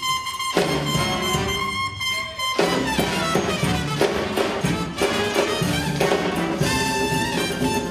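Live band music led by a horn section of alto saxophone and two trumpets playing together, with bass and drums underneath. The bass drops out briefly twice in the first few seconds.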